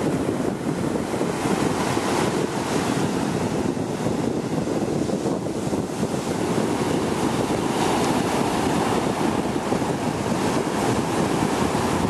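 Sea surf breaking and washing up a sandy beach in a steady rush, with wind buffeting the microphone.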